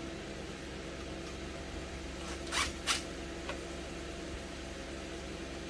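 Two short rasping scrapes a little over two and a half seconds in, then a faint click, over a steady low hum: hand work fitting an exhaust fan into its opening in a steel wall.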